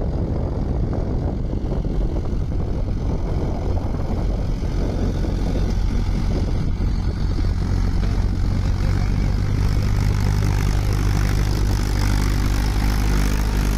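Mahindra Yuvo 575 4WD tractor's four-cylinder diesel engine running steadily under load as it hauls a loaded trolley through mud. The engine grows louder and clearer in the second half as the tractor comes close.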